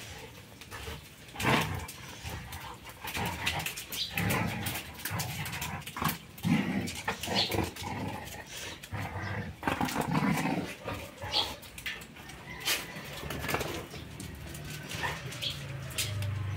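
Two golden retrievers play-fighting: irregular low growls and scuffling, mixed with many short sharp clicks.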